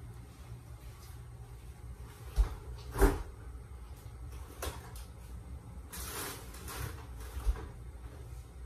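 Kitchen cupboards being opened and shut as someone moves about a kitchen: scattered knocks and thumps, the loudest two close together about two and a half and three seconds in, over a low steady hum.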